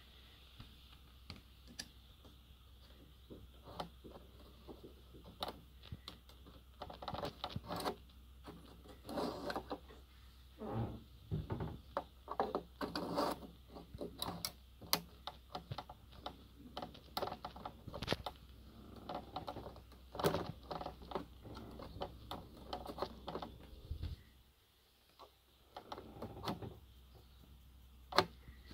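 Irregular small clicks and rubbing scrapes as a fingertip presses and turns the round plastic battery cap on a Dometic caravan fridge's control panel, working it a quarter turn to get at the AAA battery.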